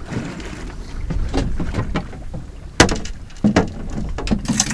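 Small boat rocking in a ground swell: a steady low rumble of wind and water, broken by a few sharp knocks and clunks on the boat about three seconds in and again near the end.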